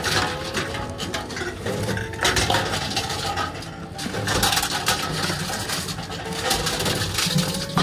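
Empty drink cans and plastic bottles clattering as they are fed one after another into a reverse vending machine for bottle returns, with repeated knocks and rattles as the machine takes each container in.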